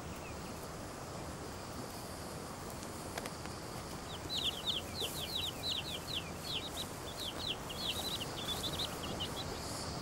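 White wagtail chicks begging in the nest as a parent brings insects: a rapid series of short, high, falling chirps, several a second, starting about four seconds in and stopping about five seconds later, over a steady hiss.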